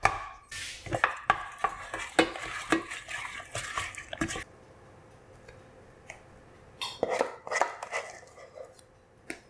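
A spoon stirring thick mashed potatoes in a stainless steel saucepan, with quick scrapes and knocks against the pan, for about four seconds. After a quiet pause, the mash is scraped out of the pan onto a plate with another run of knocks, and there is one last click near the end.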